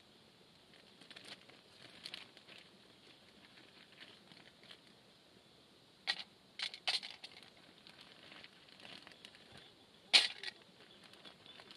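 Small items and packaging being handled on a camp table: a few sharp crinkles and clicks, the loudest about ten seconds in.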